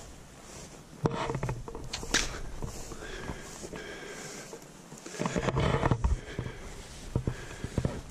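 Irregular close knocks, scrapes and rustling, loudest about a second in and again in the second half: movement and handling noise right at the microphone.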